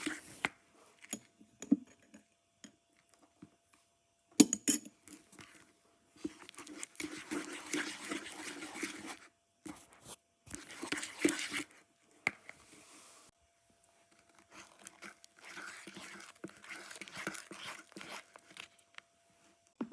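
Sticky glue slime being mixed in a bowl, giving irregular wet squelching and crackling in bouts of a few seconds with short pauses, as it is worked with contact lens solution and baking soda until it stops being sticky.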